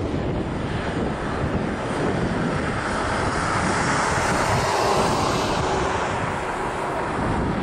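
Twin-engine jet airliner's engines running on landing, with wind buffeting the microphone. The engine noise swells in the middle and then eases off.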